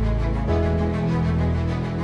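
Background soundtrack music with sustained chords, deep bass and a steady pulsing beat; the bass shifts to a new note about half a second in.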